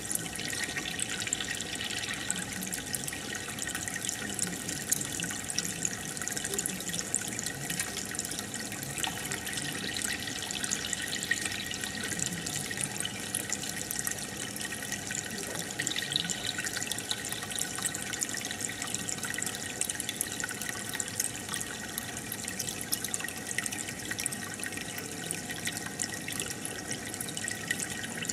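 Aquarium water trickling and bubbling steadily, with a constant fine crackle of small bubbles.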